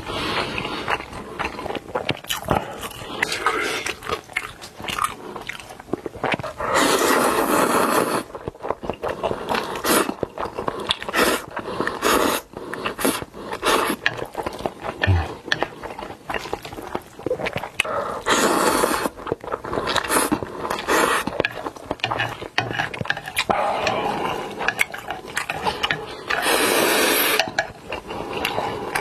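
Close-miked eating sounds: biting and chewing with many small sharp clicks, broken three times by a louder noisy stretch lasting a second or so.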